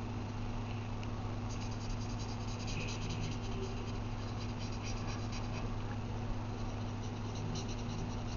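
A felt-tip marker scratches on paper in quick back-and-forth colouring strokes, loudest through the middle and again near the end. Under it runs a steady low hum.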